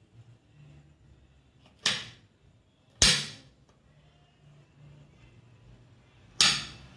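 Three sharp knife chops on a cutting board, spaced about a second and three seconds apart, while chopping red chili.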